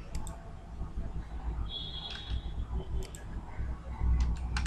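Computer mouse clicks and keyboard key presses, a few scattered taps near the start, around three seconds in and near the end, over a low steady rumble. A short high beep sounds about two seconds in.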